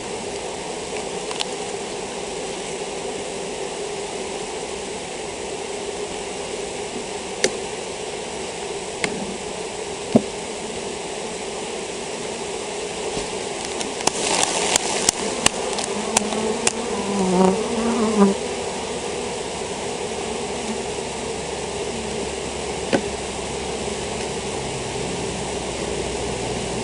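Honeybees buzzing steadily around an opened hive and a sheet covered with shaken-off bees. About halfway through comes a quick run of sharp knocks as a comb frame is jarred to shake its bees down onto the sheet.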